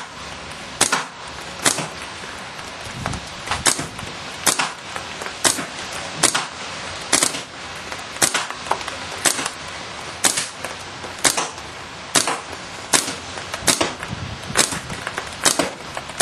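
Timmy paintball marker firing shot after shot, about one shot a second, each a short sharp pop.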